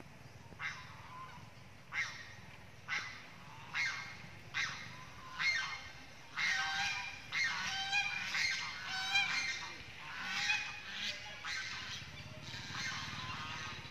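Long-tailed macaque screeching: short, high, wavering calls about once a second, then a denser, near-continuous run of calls from about six seconds in.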